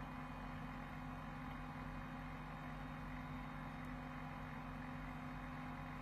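Continuous inkjet printer running through its shutdown cycle: a steady mechanical hum with low droning tones.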